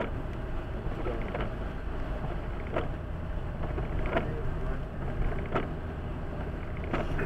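Steady car cabin and tyre noise while driving on a wet road, with the windscreen wipers sweeping. A short wiper sound repeats at an even pace, about once every second and a half.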